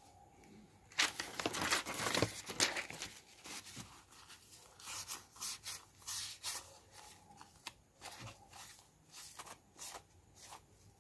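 A wad of tissue rubbed and scrubbed over a phone's freshly applied flexible screen protector, crinkling as it goes. It comes as a run of irregular rubbing strokes, starting about a second in and thinning out after the first few seconds.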